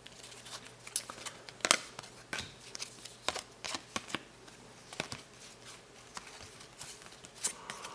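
A hand-held stack of cardboard basketball trading cards being flipped through one card at a time, each card sliding off the stack with a short flick or tick. The ticks come irregularly, the loudest a little under two seconds in.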